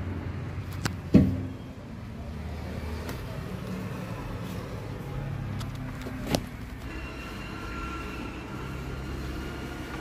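Steady low vehicle rumble with two sharp knocks, a loud one about a second in and a smaller one about six seconds in, as someone climbs into a backhoe loader's cab.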